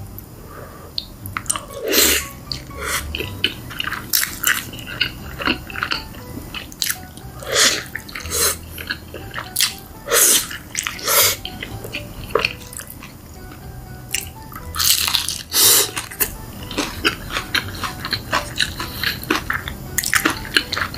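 Close-miked eating of cheesy food: wet chewing, mouth smacks and sticky clicks in irregular bursts, loudest about two seconds in, around ten seconds in and near fifteen seconds.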